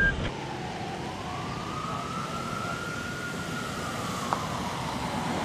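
A siren wailing, its pitch rising slowly for about three seconds and then falling again, with a single short click about four seconds in.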